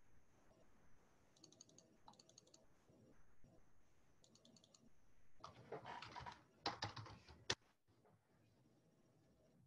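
Faint computer keyboard typing and clicking. About halfway through there is a louder rustling patch of roughly two seconds, which ends in one sharp click.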